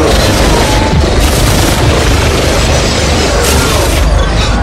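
Gunfire and explosion sound effects: a dense, continuous rumble of booms with sharp shots cutting through, mixed over the track's music.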